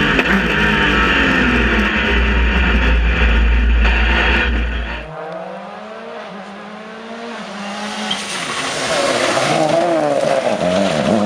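Rally cars at full throttle on a stage: one car's engine runs flat out close by for about five seconds, then the sound changes abruptly to another car approaching from further off, its engine revving up and down through the gears and getting louder toward the end.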